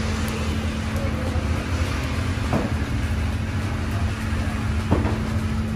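Steady low rumble of machinery or an idling engine with a constant hum through it, and two faint knocks about two and a half and five seconds in.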